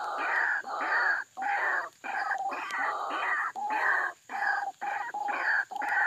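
White-breasted waterhen (ruak-ruak) calling: a rapid run of harsh, repeated croaking notes, about two a second, separated by brief breaks.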